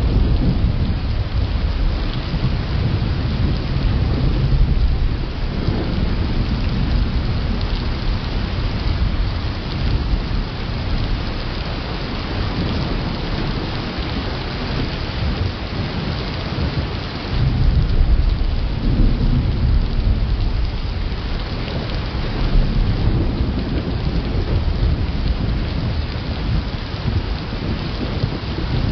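Thunderstorm: steady rain with low rolling thunder rumbling throughout, swelling louder about 17 seconds in.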